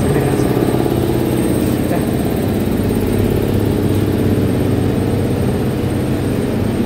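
Steady drone of machinery running, a low hum holding several steady pitches with no change in level.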